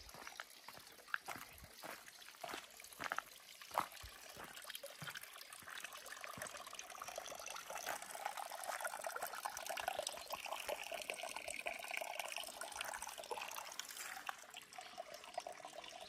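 A few sharp clicks in the first four seconds, then water running steadily.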